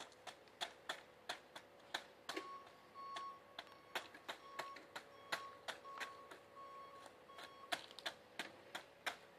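A run of sharp clicks and taps, about three a second. For several seconds in the middle, a short high beep repeats about twice a second, over a faint steady hum.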